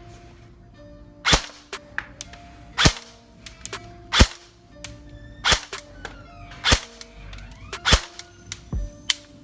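Airsoft electric rifle (Lancer Tactical Gen 2 M4) firing single shots, a sharp crack about every second and a bit, seven in all, over background music with held synth notes.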